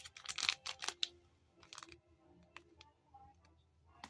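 Plastic packaging rustling during the first second, then a few light, scattered clicks and taps as clothing items and wrappers are handled.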